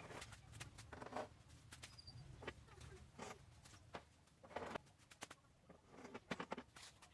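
Faint, scattered light clicks and rubbing over a low steady hum.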